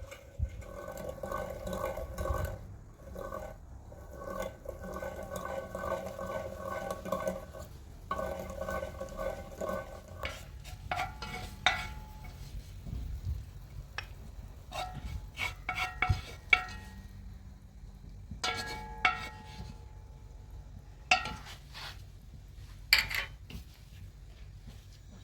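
Metal kitchen utensils working against pots and dishes. For about the first ten seconds a rhythmic ringing scrape repeats several times a second; after that come scattered sharp clinks, each ringing briefly.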